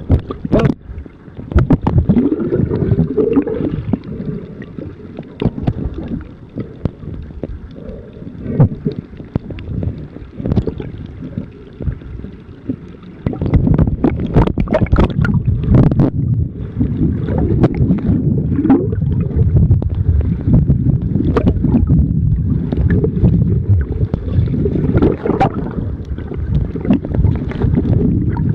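Muffled water sloshing and gurgling around a camera held at and just below the sea surface, with frequent knocks and splashes. It grows louder and steadier about halfway through.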